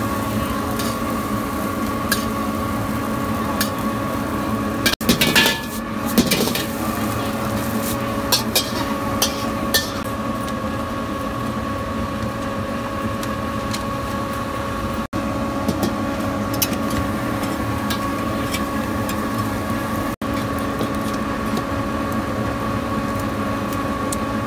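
A steady machine hum, with a metal spatula scraping and clinking against a carbon-steel wok now and then, heaviest about five seconds in and again around nine seconds.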